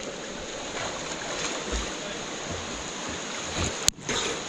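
Water splashing and churning close by as a swimmer swims front crawl through a river pool, with a sharp click a little before the end.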